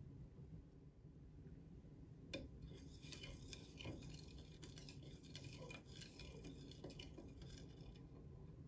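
Chopsticks stirring a seasoning liquid of soy sauce, mirin, sake, sugar and water in a bowl: faint clinks and taps of the chopsticks against the bowl, beginning with a single click a little over two seconds in and going on for several seconds.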